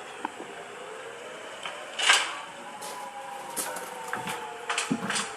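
Outdoor tornado warning siren sounding faintly for a test, its dual tones held and slowly shifting in pitch. A sharp click comes about two seconds in, with a few softer knocks near the end.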